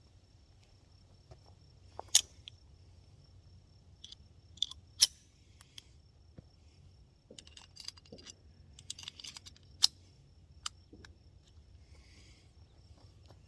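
Sharp metallic clicks and clacks from handling a prototype pistol and its 115 grain Magtech cartridges: three loud single clicks and a quick flurry of smaller ones near the middle. A cricket trills steadily at a high pitch throughout.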